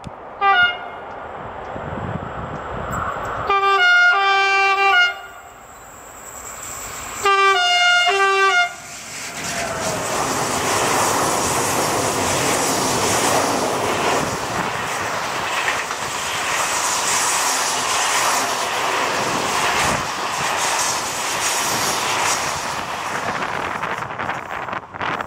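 A Renfe class 253 (Bombardier TRAXX) electric locomotive sounds its horn: a short toot, then two blasts of about a second and a half each. It then passes hauling a freight train of loaded flat wagons, a steady rumble and clatter of wheels on rail that drops off near the end.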